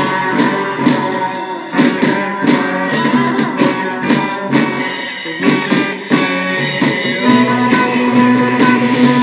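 Lo-fi psychedelic rock song with guitar and drums.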